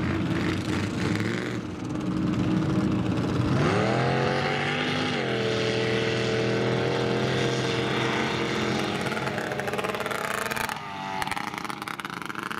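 Mud truck's big engine running hard, revving up steeply about three and a half seconds in and held at high revs, then letting off near the end.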